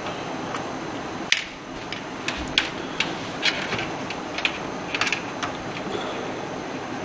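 Irregular sharp clicks and small plastic knocks of cables and connectors being handled and pushed into place inside a desktop PC case, the first the loudest, over a steady hiss.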